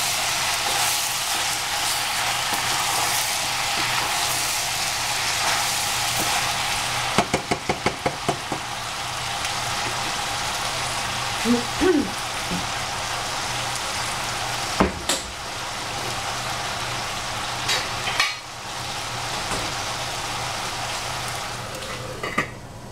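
Eggplant and squash sizzling as they fry in a pan, with a utensil stirring and knocking against the pan. About seven seconds in there is a quick run of roughly eight knocks, then a few single knocks later, and the sizzle is a little softer after the run.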